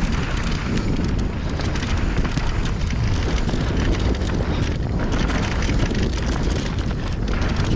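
Mountain bike riding fast down a dirt trail: wind buffeting the microphone with a steady low rumble, while the tyres run over loose ground and the bike rattles and knocks over the bumps.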